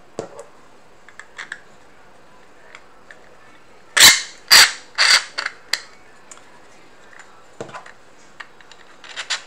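Metal rods clacking against hard 3D-printed plastic parts as they are handled and pushed through. A cluster of loud, sharp clacks comes about four seconds in, with fainter ticks and knocks before and after.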